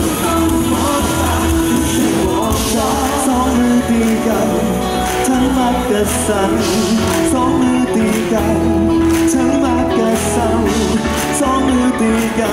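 Live pop-rock band playing a song, with singing over electric guitar and a steady beat.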